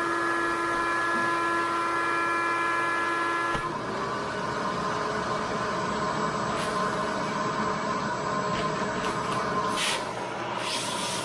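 Shop vacuum running with a steady whine as it sucks the air out of a vacuum-seal storage bag holding 3D-printer filament spools. Its nozzle has holes drilled in it to limit the suction. About four seconds in, its note shifts a little higher, and near the end there are a couple of brief hissy rustles.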